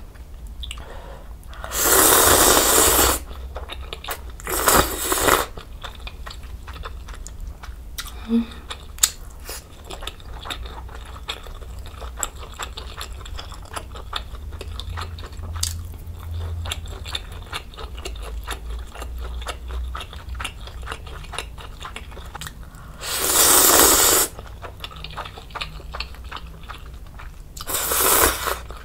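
Close-miked eating sounds: loud slurps about a second long, twice in the first five seconds and twice more near the end, as instant ramen noodles and stew from budae jjigae are sucked in. Soft chewing and small wet mouth clicks in between.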